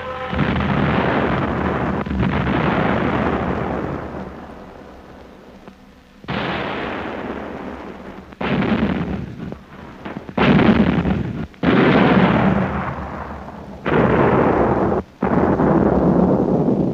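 Sound effect of an aerial bombing raid: a string of heavy bomb explosions. Each blast hits suddenly and rumbles away over a second or more; the first few are spaced out, and from about halfway they come in quick succession.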